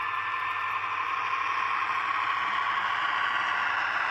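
H0-scale model freight train, a line of open wagons, rolling along the track with a steady rattling run and a faint whine, growing louder as the wagons come closer.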